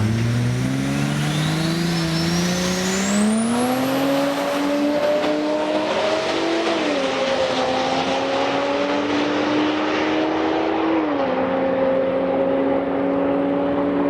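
Drag race car accelerating hard down the strip, its engine pitch climbing through the gears and dropping back at shifts about six and eleven seconds in. A thin high whine rises over the first few seconds.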